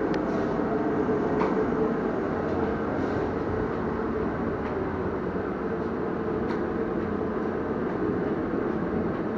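Steady, even mechanical noise, like a machine running continuously, with a few faint clicks.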